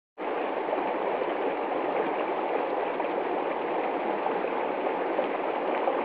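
Shallow rocky stream, its water rushing and splashing over stones in a steady rush.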